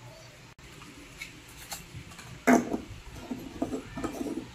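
A sharp knock about two and a half seconds in, then small clicks and scrapes as an LED bulb is screwed into a porcelain lamp holder.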